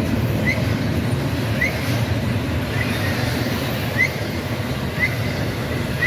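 Freight train rolling past with a steady rumble of wheels and cars. Short high rising chirps come about once a second.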